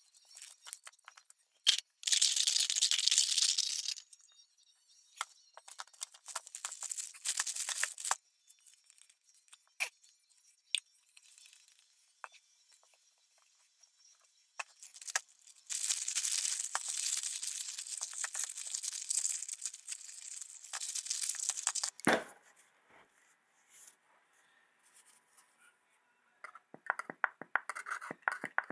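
A plastic zip-lock bag crinkling in several stretches as greasy vise parts are handled. There is one sharp knock about two-thirds of the way through and a run of quick light scraping clicks near the end.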